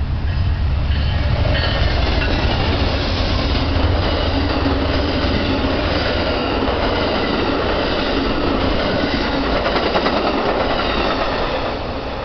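Amtrak Southwest Chief passenger train passing: a deep diesel locomotive rumble for the first few seconds, then the steady rush of its stainless bilevel cars rolling by on the rails. The sound eases off near the end as the train moves away.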